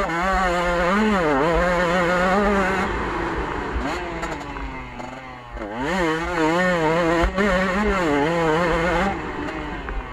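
KTM 125 two-stroke enduro motorcycle engine running hard, its pitch climbing and dropping again and again as the rider works the throttle and gears. It backs off around four seconds in, revs up again about a second and a half later, and eases off once more near the end, over a steady low rumble.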